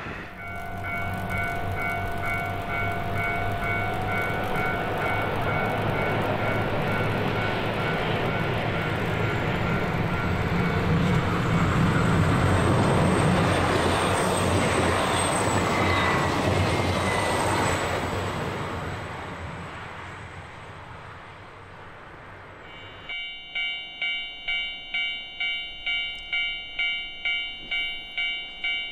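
JR Hokkaido KiHa 261 series diesel express train passing at speed. The engine and running noise build to a peak a little before the middle, then fade, with a thin high squeal in the middle. Pulsing warning tones sound at the start, and after a sudden cut near the end a level-crossing bell rings about twice a second.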